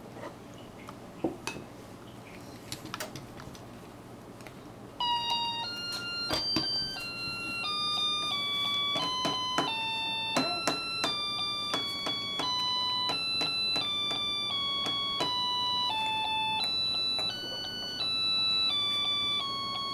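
A few sharp clicks and taps, then, about five seconds in, a simple chime-like electronic melody starts, playing one clear note at a time in short even steps.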